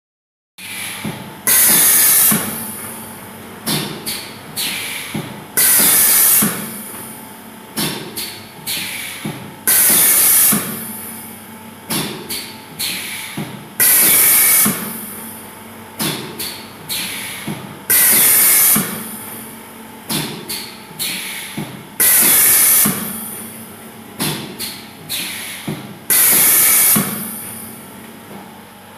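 Pneumatic cupcake batter filling machine cycling: a loud hiss of air exhaust about every four seconds as the air cylinders stroke, with a few sharp clicks and knocks from the cylinders and valves between hisses, over a steady hum.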